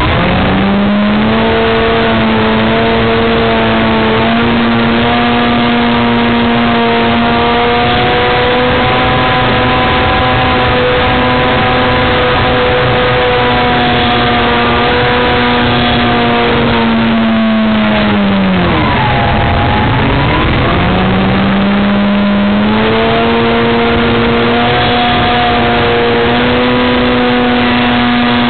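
Electric motor and propeller of an Edge 540 RC model plane, heard from inside the fuselage. It gives a loud, steady whine over a noisy rush. The pitch climbs as the throttle opens at the start and holds. About two-thirds through it sinks and swoops as the throttle is pulled back, then climbs back up a few seconds later.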